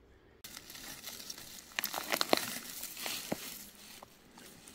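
Rustling and crinkling that starts suddenly, with a few sharp crackling snaps about two seconds in and another a little later.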